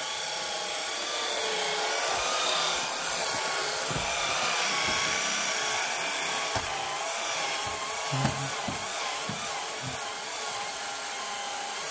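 Cordless electric stick sweeper running on carpet: a steady high motor whine that wavers slightly in pitch as the head is pushed back and forth, with a few soft knocks.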